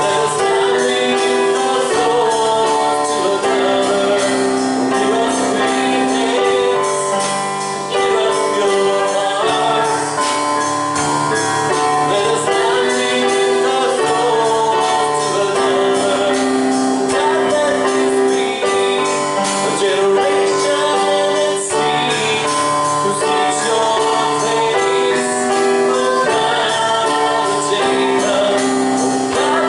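Slow gospel worship music with voices singing over it, long held notes and steady chord changes every couple of seconds.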